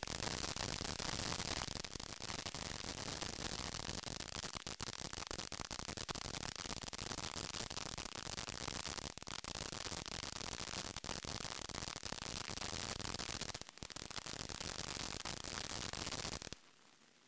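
Ground fountain firework spraying sparks: a steady hiss dense with fine crackling, which cuts off suddenly near the end.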